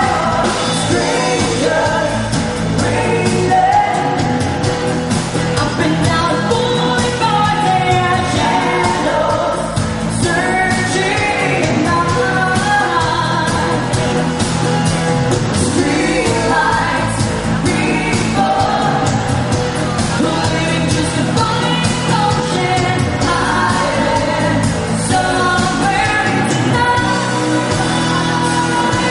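Live band playing a pop-rock song: a singer over drums and amplified instruments, with steady drum beats throughout.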